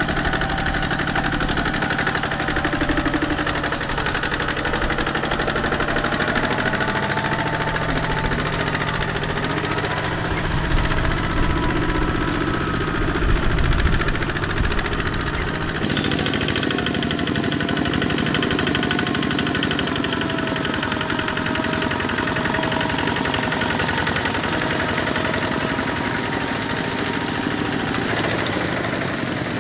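Single-cylinder diesel engine of a two-wheel walking tractor chugging steadily under load as it pulls a trailer of rice sacks, its pitch wavering as the load changes.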